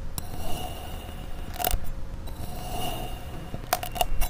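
Kinetic sand crunching and crackling as a blade slices down through a packed cone of it, with a few sharp clicks about two seconds in and again near the end.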